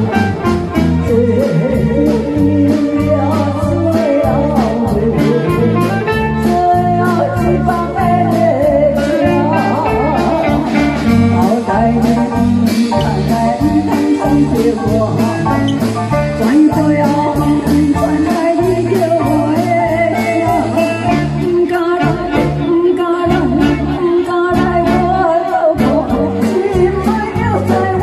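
A woman singing a Japanese song through a microphone and PA, backed by a live band of electric guitar, saxophone, bass and drums playing a steady beat.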